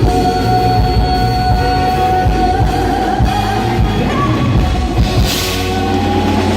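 Live band music with singing: a drum-kit beat under long held sung notes, with a cymbal crash about five seconds in.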